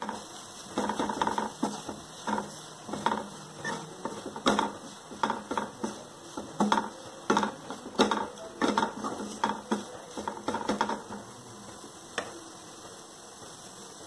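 Wooden spatula stirring and scraping a crumbly filling around a nonstick kadai, in irregular clattering strokes about one or two a second that stop a couple of seconds before the end.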